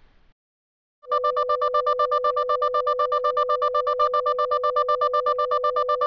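TV glitch sound effect: a steady electronic buzzing tone that starts about a second in and flutters with a quick, even pulse of about eight beats a second.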